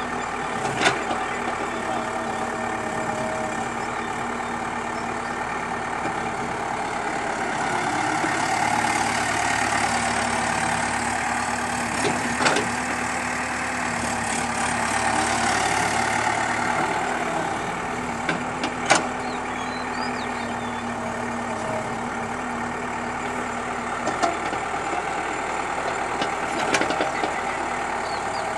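Hydraulic excavator's diesel engine running steadily, working harder and louder for several seconds midway, with a few sharp metallic clanks.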